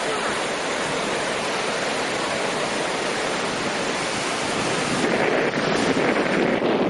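Sea surf washing onto the beach, a steady rushing noise, with strong wind on the microphone; it grows a little louder about five seconds in.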